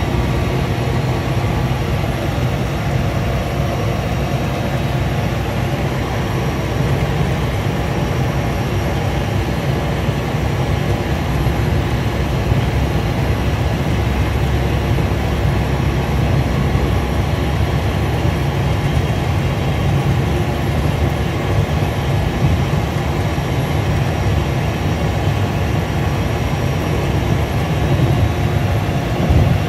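Cessna 208 Caravan's Pratt & Whitney PT6A turboprop engine and propeller running at taxi power, heard from inside the cockpit: a steady, loud drone.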